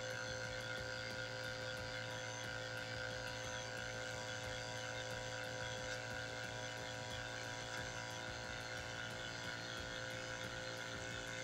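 Small electric oil pump running steadily with an even hum, pumping gear oil through a clear hose into a manual transmission.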